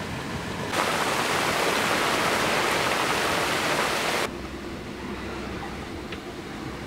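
Loud steady rushing hiss of wind, rain and water aboard a sailing yacht at sea. It cuts in under a second in and stops abruptly about four seconds in, leaving a quieter rush with a low rumble.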